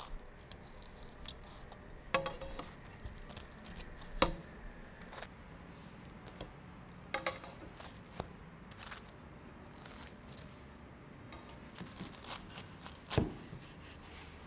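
Metal tongs clicking and scraping against a pan while turning slices of toasting bread: a scatter of separate taps and clinks, with a louder thump near the end.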